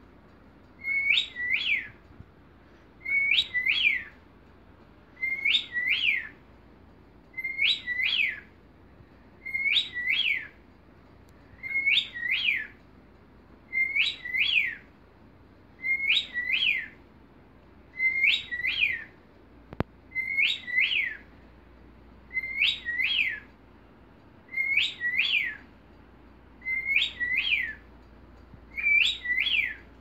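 A cockatiel whistling the same short phrase over and over, about once every two seconds. Each phrase is a brief level note followed by two quick rising-and-falling whistles, the contented whistling of a happy pet bird.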